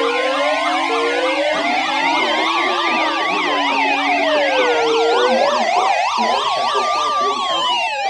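Several emergency weather radios and hand-crank radios alarming at once for a severe thunderstorm warning: overlapping electronic sirens, fast yelping warbles over slow rising-and-falling wails, with a steady high alert tone that stops about a second in.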